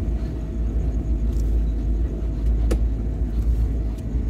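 Car driving slowly, heard from inside the cabin: a steady low engine and tyre rumble, with a couple of short sharp clicks in the second half.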